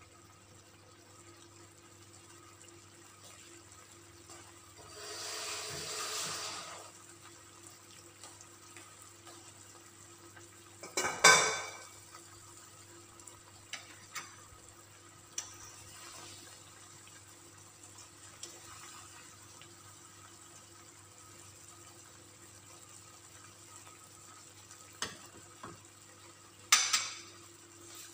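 Chicken in cream sauce simmering and bubbling in a stainless steel pan, with a steady low hum under it. Metal clatters of a pot or utensil punctuate it: a loud one about eleven seconds in, a few small clicks, and another sharp clatter near the end. A brief rush of noise comes around five to seven seconds in.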